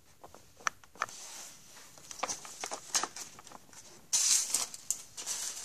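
Trading cards handled on a tabletop: scattered light taps and clicks of cards being gathered and set down, then about four seconds in a louder burst of crinkling from a card pack's wrapper.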